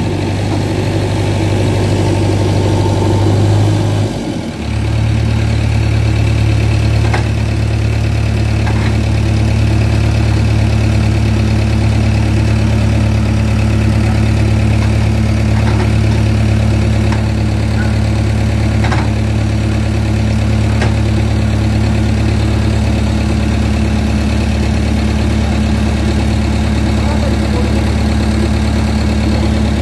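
Diesel engine of a JCB 3DX backhoe loader running steadily under the operator's control, with a brief dip and a change to a lower, heavier note about four seconds in.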